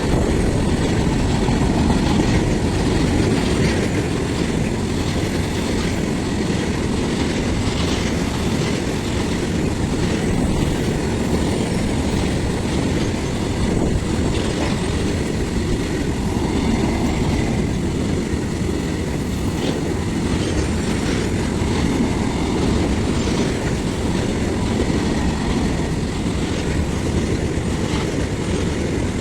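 A train passing close by at steady speed: a loud continuous rumble of wheels on the rails, with a light clatter over the rail joints.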